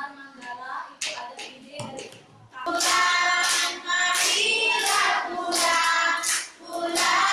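Young children and a woman singing a song together, with a few sharp hand claps in the quieter first part; the singing comes in loud about three seconds in.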